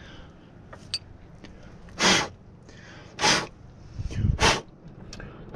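Sharp breaths forced out through the nose, two short hissing ones about a second apart and a third at the end, as a fuel injector holder is worked out of the engine. A few low knocks of handling about four seconds in.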